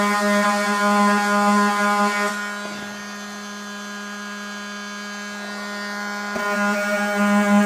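Cordless oscillating multi-tool sander running steadily as it sands joints, a constant buzzing hum. It softens for a few seconds in the middle, then comes back up to full level.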